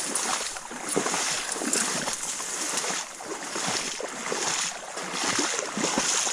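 Footsteps through a marsh: tall dry grass and reeds swishing and brushing against clothing, with surges about once a second in walking rhythm.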